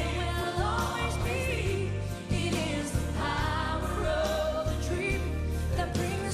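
Female lead vocalist singing live into a handheld microphone, backed by a choir and a full band with a steady bass line.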